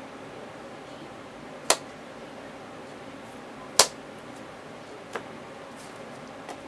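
Sharp clicks of trading cards being put down on a playmat: two loud snaps about two seconds apart, then a softer one, over a steady faint hiss.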